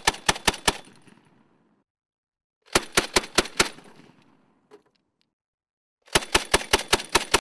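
A Mk-19 40 mm automatic grenade launcher firing three short bursts of about five to seven rounds each, at roughly five or six rounds a second. Each burst trails off in a short echo.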